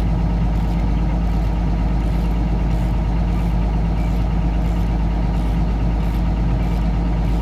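Excavator's diesel engine idling steadily, a constant low hum with no change in speed.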